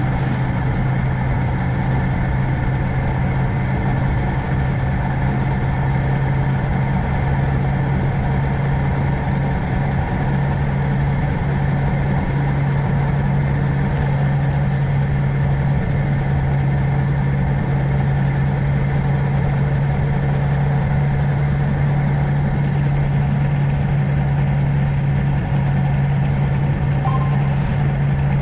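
Suzuki GrassTracker BigBoy's air-cooled single-cylinder engine running steadily at an unchanging speed, a constant low hum with no revving. A brief high chirp sounds near the end.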